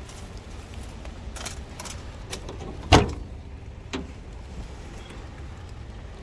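A few light knocks, then one loud bang about three seconds in and a smaller knock a second later, over a low steady rumble.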